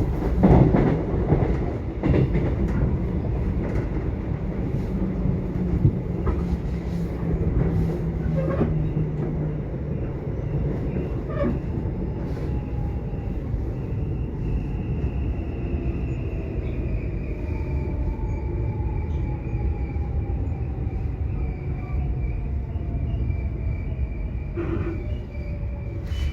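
Subway train running, a steady low rumble with an occasional click of the wheels. In the second half a thin electric whine slowly falls in pitch.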